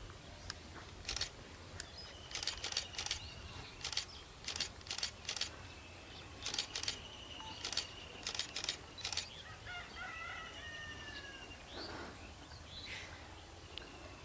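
Birds calling: scattered sharp clicks in quick clusters, a high, rapidly pulsing trill that comes and goes, and a few short chirps about ten seconds in, over a faint low hum.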